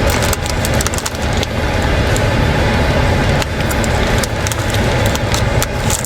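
Close-up chewing of a crunchy pretzel stick: a dense run of crackles and crunches over a steady low rumble.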